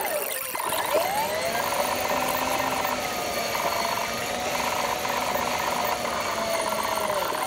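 Dashcam recording of a car driving on a highway, engine and road noise sped up twenty-fold into a high, wavering whine with fast buzzing pulses.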